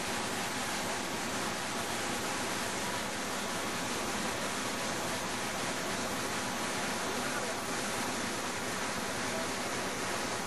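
Whitewater of a mountain river rushing over boulders: a steady, unbroken rush of water.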